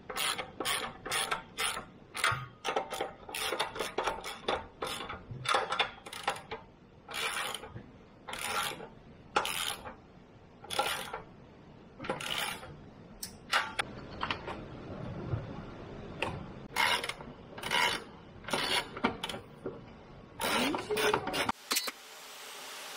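Socket ratchet clicking in quick repeated bursts of strokes as the nuts on a new exhaust pipe sleeve clamp are tightened. Near the end the clicking stops and a steady hiss takes over.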